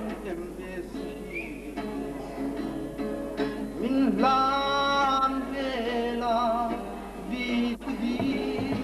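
A man singing to his own acoustic guitar, with a long held note about halfway through.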